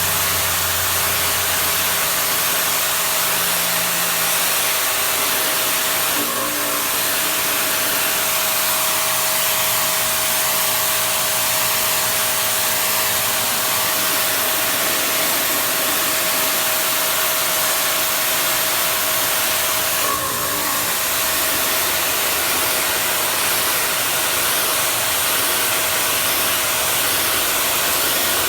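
Ryobi 2300 psi electric pressure washer running and spraying through its 15-degree nozzle: a loud, steady hiss of the water jet over a steady motor-pump whine, with brief hitches about six and twenty seconds in.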